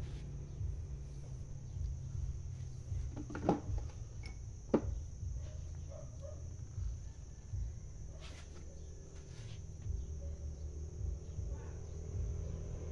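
A steady low background rumble, with two short sharp clicks about three and a half and five seconds in and a few fainter ticks.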